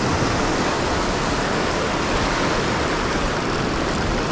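Small waves breaking and washing up a shallow sandy shore: a steady, even hiss of surf.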